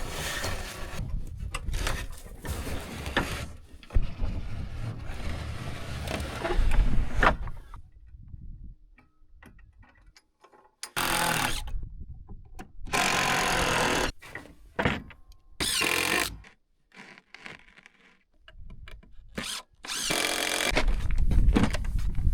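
A power tool's motor run in short bursts of about a second each, four times, after several seconds of rough, uneven noise.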